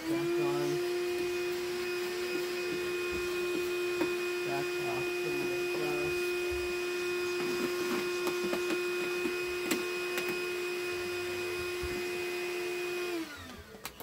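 Black+Decker POWERSERIES PRO cordless vacuum running at a steady high whine while its hose nozzle vacuums dust off a wet/dry vac's cloth filter. It starts abruptly, then is switched off about a second before the end, its pitch falling as the motor spins down.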